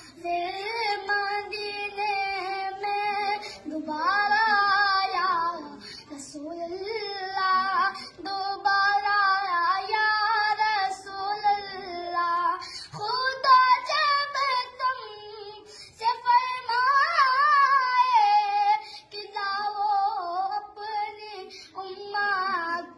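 A young boy singing a naat, an Islamic devotional song, solo: long held, wavering notes in phrases of a few seconds with short breaks between them.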